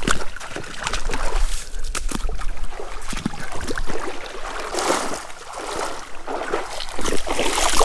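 Shallow creek water sloshing and splashing irregularly as a person wades through it, with scattered short knocks and crackles.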